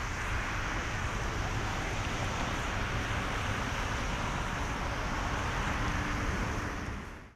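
Boeing 757-200 freighter's jet engines at climb thrust, heard from the ground as a steady rushing roar while the aircraft climbs away after takeoff; the sound fades out sharply near the end.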